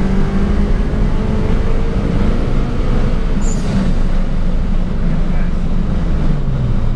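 Turbocharged 16-valve engine of a VW Polo G40, heard from inside the cabin, running hard at speed with its note climbing slightly. A brief hiss comes about three and a half seconds in, and near the end the engine note drops as the revs fall.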